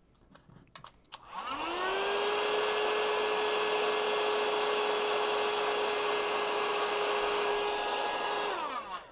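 Electric heat gun shrinking heat-shrink tubing over a shielded cable's termination. After a few clicks as it is switched on, its fan motor spins up to a steady whine with a rush of hot air, runs for about seven seconds, then winds down as it is switched off near the end.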